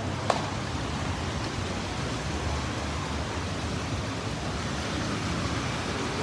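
Steady rushing noise of a flooded street, with runoff water flowing across the road and traffic driving through it. A single sharp click near the start.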